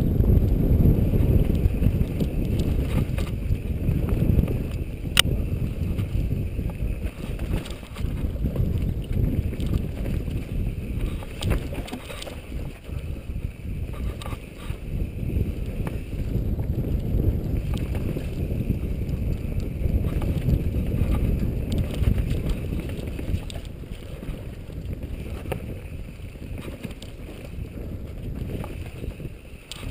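Rumbling wind buffeting on a helmet-mounted GoPro HD Hero's microphone, mixed with the rattle and knocks of a mountain bike riding fast down a rough dirt forest trail. There is one sharp click about five seconds in.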